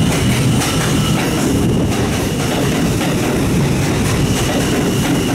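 New York City Subway E train pulling into an underground station and passing close by. A steady heavy rumble of the cars runs throughout, with wheels clicking over rail joints and a thin, steady high tone above it.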